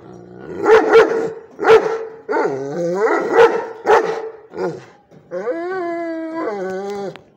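A dog barking loudly several times in quick succession, then one long howl of about two seconds near the end.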